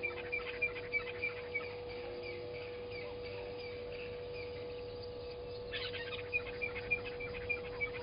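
Blacksmith lapwing calling a run of short, sharp notes about three a second, once in the first couple of seconds and again from about six seconds in. A steady hum runs underneath.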